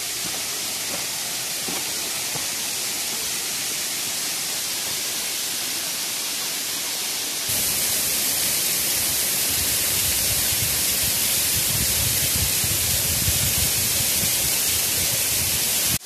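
Waterfall's rushing water, a steady hiss. About halfway through it becomes abruptly louder and fuller, heard close to the falls.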